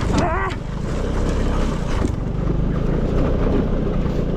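Vespa scooter engine running steadily, with wind buffeting the microphone. A short wavering vocal sound is heard near the start.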